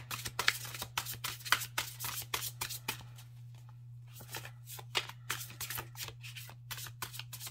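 Oracle cards being shuffled by hand: a quick run of papery card flicks and snaps, busiest over the first three seconds and then sparser and softer. A steady low hum runs underneath.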